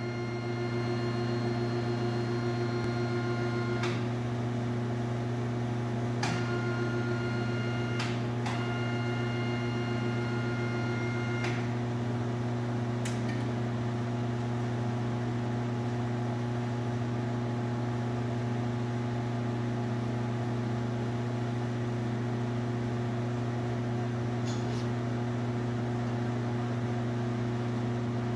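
Knorr paper pile lift raising its loaded platform: a steady electric-motor hum, with a higher whine that cuts in and out in the first dozen seconds and a few sharp clicks.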